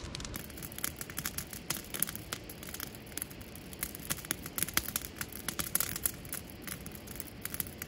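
Wood campfire crackling, with many irregular sharp snaps over a steady low hiss of the flames. The crackle comes from very well seasoned firewood.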